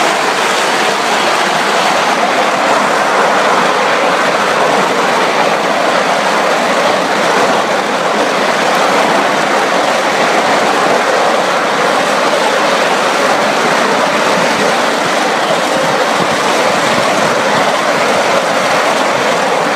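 Coal-fired live-steam miniature Atlantic (4-4-2) locomotive running at speed on a ride-on track: a steady, unbroken mix of exhaust and wheel-on-rail noise.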